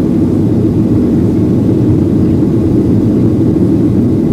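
Steady low drone inside the cabin of a Boeing 737-800 climbing after takeoff: its CFM56 turbofan engines and the airflow past the fuselage.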